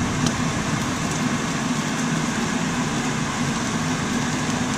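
Ground beef and hot dog sauce frying in a pan, an even hiss over a steady low mechanical hum, with a faint tick about a quarter second in.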